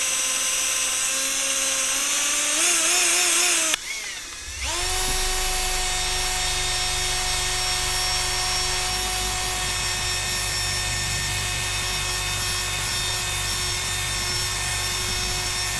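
Electric buffing wheel motor running with a steady whine, its pitch wavering while the axe head is pressed against it. About four seconds in the sound breaks off briefly, then the motor note rises back up to speed and holds steady.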